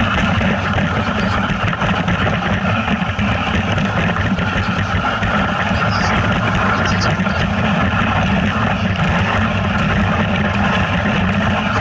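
A vehicle engine running steadily under way, with continuous loud mechanical and travel noise.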